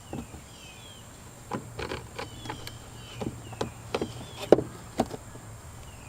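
Plastic clicks and knocks of a K&N air filter being fitted into a car's plastic air box, about a dozen short, sharp taps, the loudest about four and a half seconds in. Faint, repeated short high chirps run underneath.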